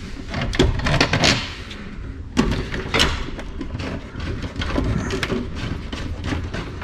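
Irregular clicks and knocks from a 2001 International 3800 school bus's instrument cluster being pressed into its dash opening and a screwdriver being handled against it during reinstallation.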